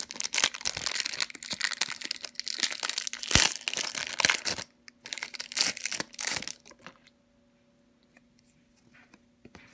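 Foil wrapper of a Pokémon trading card booster pack being torn open and crinkled: dense crackling for about four and a half seconds, then a few softer crinkles.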